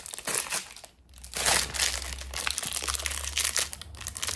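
Crinkly packaging being handled and crumpled, a dense run of crackles with a short lull about a second in.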